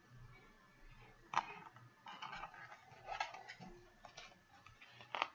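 A paperback picture book being handled: a sharp click about a second in, crackly paper rustling through the middle, and another click near the end.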